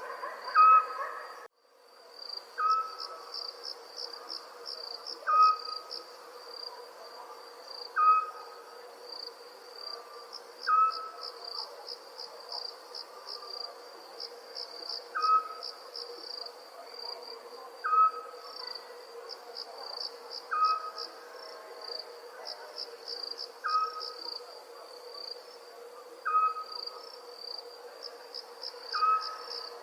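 Night ambience of crickets chirping in a steady, high, pulsing trill, louder in clusters every few seconds. A short, lower call repeats about every two and a half seconds through it. The sound drops out briefly about a second and a half in, then fades back up.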